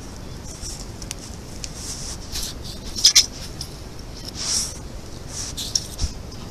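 A European otter right at the camera trap, its body brushing and bumping against the camera: irregular short rustling, scraping noises. The loudest is a sharp double knock about three seconds in.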